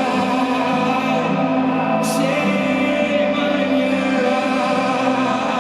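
Live concert music recorded in an arena: held, layered chords with wordless choir-like singing and no lyrics. A brief bright hiss sounds about two seconds in.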